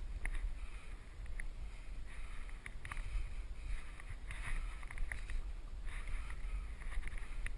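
A climber scrambling up bare limestone: hands and boots tap and scrape on the rock every second or so, over repeated hard breaths and a low rumble of wind on the microphone.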